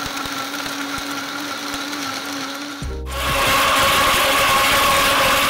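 Countertop blender running, its motor whirring steadily as it blends a green smoothie. About three seconds in, the sound jumps louder and higher, like the blender at full speed.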